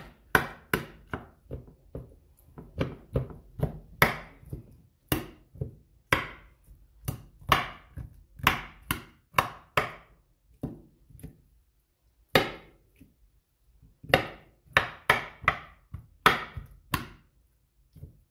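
Raw chicken pieces being poked full of holes with a sharp utensil: repeated sharp stabbing taps, two or three a second, each jab striking the surface beneath the meat, with a short pause about ten seconds in.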